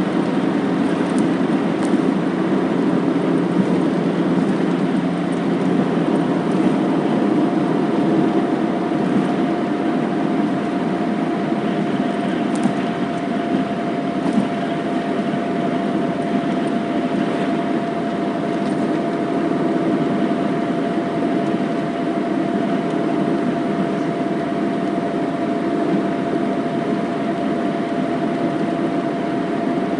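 Inside a moving car: steady road and engine noise, with a thin steady tone joining about six seconds in and a few light clicks.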